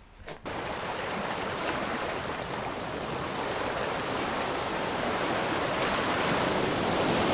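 Steady outdoor rush of sea surf and wind, starting abruptly about half a second in and growing slightly louder toward the end.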